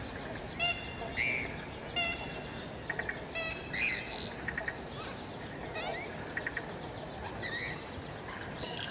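Birds calling repeatedly, short chirps every second or so, over a steady hiss of light rain on the lagoon.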